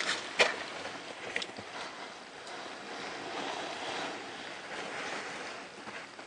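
Knocks and a rustling scrape as a caver moves and works against packed snow and ice in a narrow shaft: a few sharp knocks in the first second and a half, the loudest about half a second in, then steady scraping.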